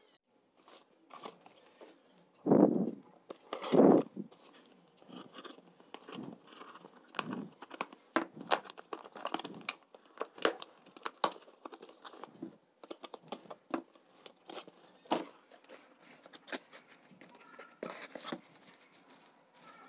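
Cardboard parcel being torn open: two loud rips of tape and box flaps, then a long run of crackling and rustling as hands dig into the bubble wrap packed inside.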